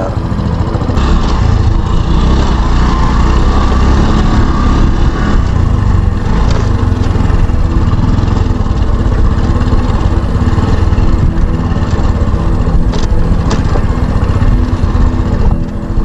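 Wind buffeting the microphone: a loud, steady low rumble, with a few light knocks.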